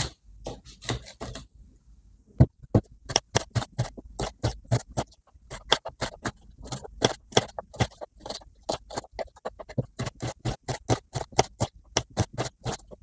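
Kitchen knife chopping an onion on a wooden cutting board: sharp knocks of the blade through the onion onto the board. A few scattered cuts come at first, then from about two seconds in the cuts run quick and even, about four a second.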